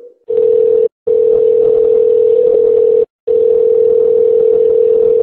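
A steady, single-pitched telephone tone heard over the phone line with line hiss, breaking off briefly twice.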